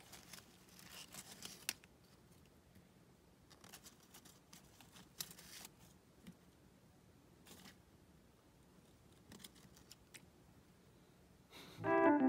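Faint, scattered scrapes and rustles as metal feeding tongs work in a Pac-Man frog's terrarium, a few short ones spread over several seconds. Electric piano music comes in near the end.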